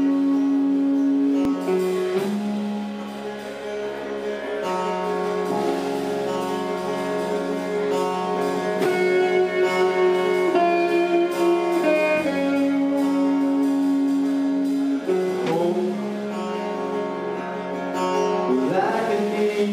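Rock band playing live, with guitars and bass holding chords that change every few seconds.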